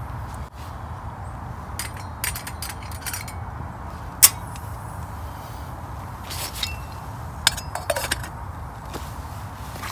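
Metal clinks and clanks as the ring is settled onto a burning wood-pellet gasification camping stove and a lidded camping pot is set on top of it, over a steady low rumble. The loudest clink comes about four seconds in, with a few more near the end.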